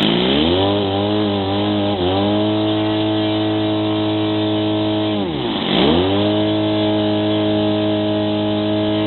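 Saito 57 gas engine of a large radio-controlled Cessna 150 model, run up on the ground while the plane is held. It climbs in pitch right at the start and holds steady, drops sharply to a low note about five and a half seconds in and climbs straight back, then begins to fall again at the end.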